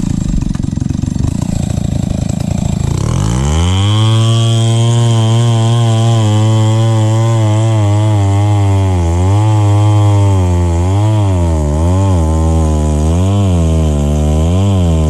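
Two-stroke chainsaw throttling up about three seconds in and running at full speed as it cuts into the trunk of an old rubber tree. From about nine seconds in its pitch dips and recovers roughly once a second as the chain bites in and out of the wood.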